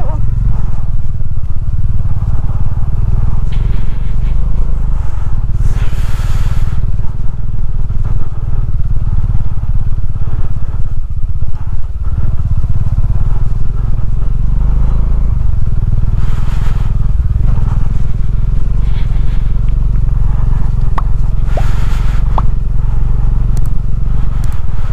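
Motorcycle engine running as the bike rides along a rough road, a steady low drone, with a short rush of noise three times.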